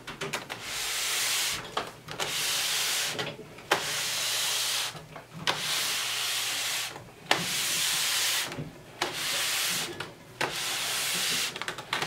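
A countertop microwave oven being turned around by hand in short pushes, its base scraping on the surface beneath, a rubbing scrape of about a second each time, about seven times over.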